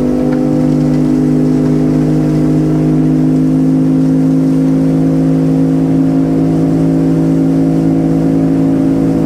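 Small motorboat's engine running steadily at constant cruising speed, its note holding one even pitch.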